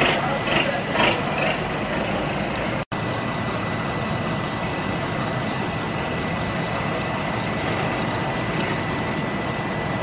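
Forklift reversing alarm beeping about twice a second over a steady engine hum; the beeping stops about one and a half seconds in. After a brief break, a steady machinery hum with a thin high whine continues.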